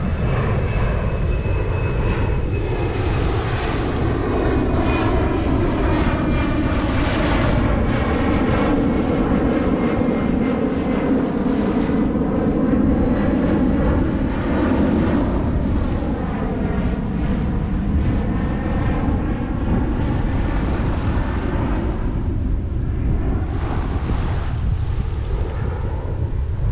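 An airplane passing overhead, its engine drone rising and fading over about twenty seconds. Under it, surf breaks on the sand in repeated surges, with wind buffeting the microphone.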